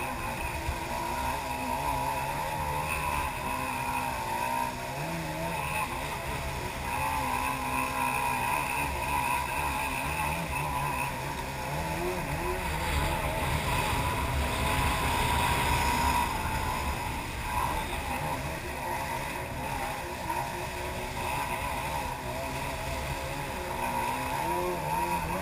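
Jet ski engine running at speed, its pitch wavering up and down with the throttle, over a steady rush of water.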